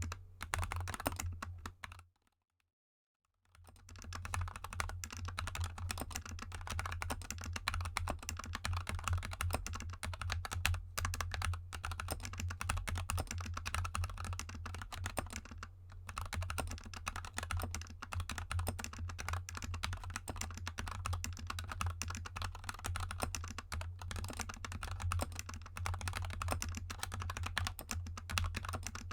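Fast continuous typing on a GK64 mechanical keyboard with lubed Gateron Yellow linear switches and XDA keycaps: a dense run of keystroke clacks. The sound cuts to dead silence about two seconds in, then resumes after roughly a second.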